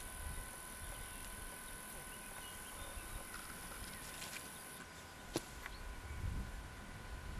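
Quiet open-air ambience with a low rumble that grows a little toward the end, faint steady tones underneath, and a single sharp click a little past halfway.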